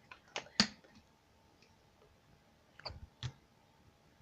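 About five sharp clicks and taps of containers being handled: three in the first second, the loudest about half a second in, and two more about three seconds in.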